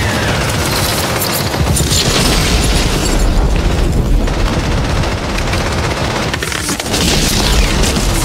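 Battle sound effects from a war film: dense rifle and machine-gun fire, crackling without a break, over heavy booming and a steady low rumble.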